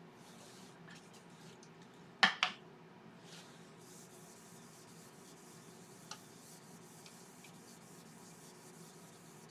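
Paper towel rubbing oil onto a yew bowl in soft, scratchy strokes over a low steady hum, with two sharp knocks in quick succession a little over two seconds in.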